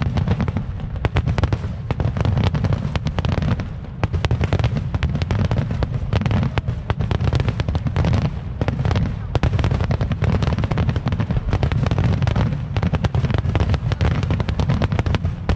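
A barrage of aerial firework shells bursting in quick succession: overlapping deep booms with dense, rapid crackling, without a break.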